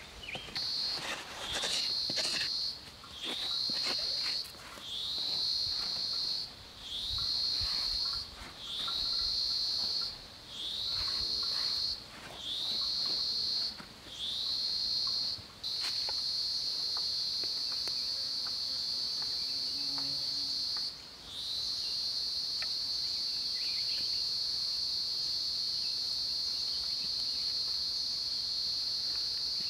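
A forest insect calling in a high, shrill buzz. About eight pulses come roughly a second and a half long with short gaps, each sliding slightly up in pitch at its start. About halfway through it settles into one unbroken drone, broken once by a short pause. Faint scrapes and clicks of digging in soil sound under it in the first few seconds.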